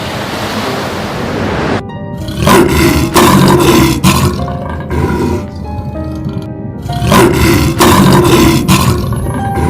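A steady rushing noise that cuts off about two seconds in, then a large animal roaring in several rough bouts over background music.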